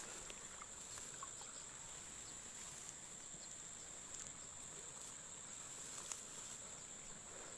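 Faint, steady, high-pitched chirring of an insect chorus, with a few small clicks now and then.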